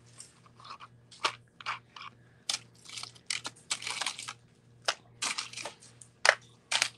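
Strands of Czech glass beads clicking and rattling as they are handled, pulled from tubs and laid in a tray, in irregular bursts of clicks and rustles.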